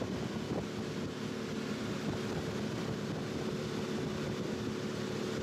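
Motorboat engine running at a steady pitch, with wind noise on the microphone.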